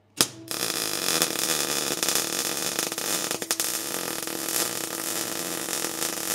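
Electric arc welding on a steel part: a short sharp crack as the arc strikes, then a steady crackling hiss with a faint hum under it.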